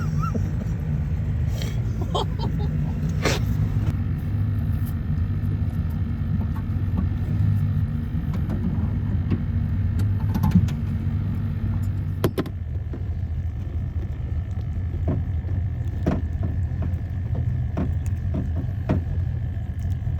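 Boat's outboard motor running steadily, a low rumble, with a few light knocks now and then.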